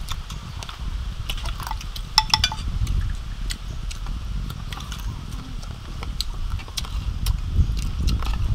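Close-up eating sounds: crispy fried pork belly and rice being chewed, with sharp crackly clicks. Spoons clink on plates, most clearly a little over two seconds in.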